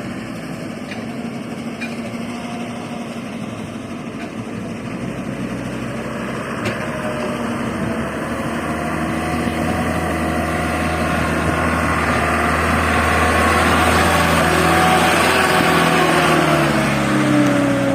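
Heavy diesel engine running, growing louder over about ten seconds, then its pitch drops near the end.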